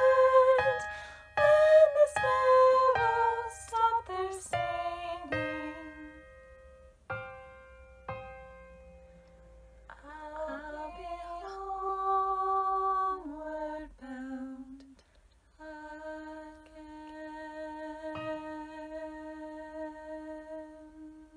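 A woman singing a slow, quiet closing phrase, with piano chords under her for the first few seconds, then unaccompanied voice ending on one long held note that fades out.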